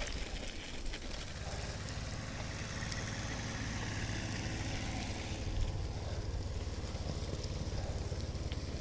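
Bicycle rolling along a rough track, heard through a bike-mounted camera: steady tyre and frame rumble with wind on the microphone, and one sharper knock from a bump just past halfway.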